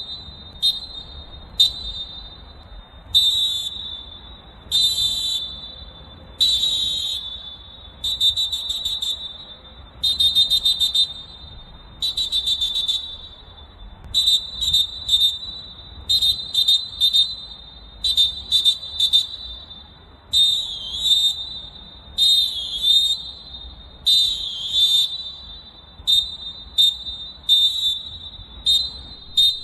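Molten Dolfin pealess referee whistles blown in a long series of blasts on one high pitch. There are quick double and triple tweets, longer held blasts, some with a rapid flutter, and a few about two-thirds of the way through that dip and rise in pitch.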